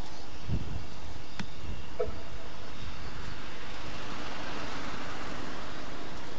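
Ffestiniog Railway narrow-gauge steam locomotive running light in the distance, a steady noisy rumble with a few low thumps near the start.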